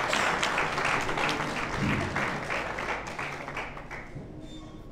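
Audience applauding, a dense patter of many hands clapping that dies away about four seconds in.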